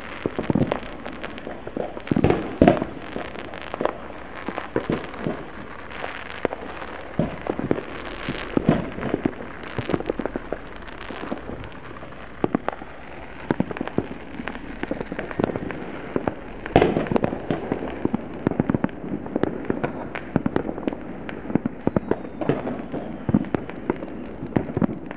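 Distant neighbourhood fireworks going off across the town below: many irregular bangs and pops, each trailed by an echo off the ridge. Two bangs stand out as louder, about two seconds in and about seventeen seconds in.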